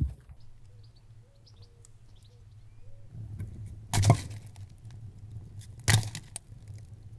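Two split firewood logs dropped into a round brick-lined fire pit, each landing with a sharp wooden knock, about two seconds apart.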